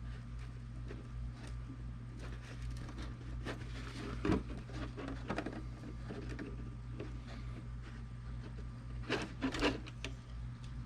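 Handling noise of fishing line being knotted onto a plastic milk jug's handle: scattered soft rustles and light knocks, louder about four seconds in and again near the end, over a steady low hum.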